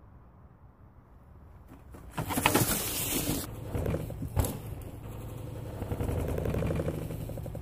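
Mountain bike riding past over a leaf-covered dirt trail: tyres rolling and crunching through dry leaves, with a sharp knock about four and a half seconds in.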